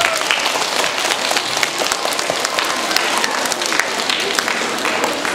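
An audience of schoolchildren applauding, a dense, even patter of many hands clapping at once.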